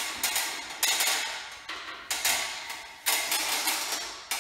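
Cordless drill boring into the plaster ceiling in a series of short bursts. Each burst starts suddenly and tails off before the next.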